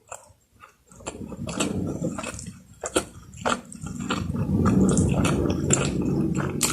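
Close-miked chewing with wet mouth clicks and smacks. It is nearly quiet for the first second, then the chewing builds into a steadier, louder run from about four seconds in.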